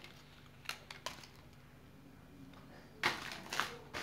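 A few faint clicks, then about three seconds in a short burst of crinkling from a lollipop's plastic wrapper being handled.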